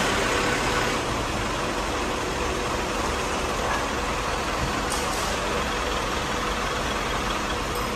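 Diesel engine of an Isuzu Traga pickup running at a crawl as the truck creeps forward, the sound easing off about a second in and then holding steady.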